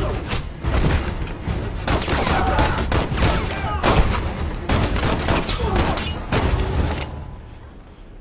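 Film-soundtrack gunfire: a dense volley of many rapid shots for about seven seconds, dying away near the end.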